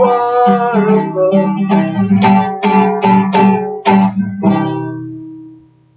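A guitar strumming the closing chords of a song. The strokes stop about four and a half seconds in, and the last chord rings out and fades away.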